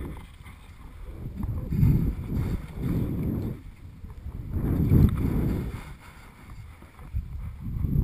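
Skis sliding through chopped snow on a downhill run, with wind rushing over the camera's microphone: a low rumble that swells and fades several times, loudest about two and five seconds in.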